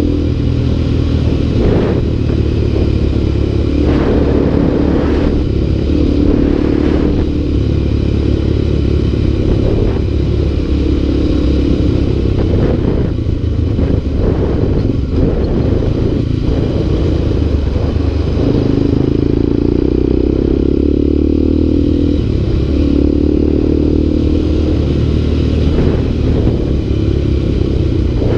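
Motorcycle engine running continuously as the bike rides along a dirt road, its note rising and falling a few times with the throttle, over a steady low rumble. Occasional short knocks and clatter come from the bike jolting over the rough, rutted surface.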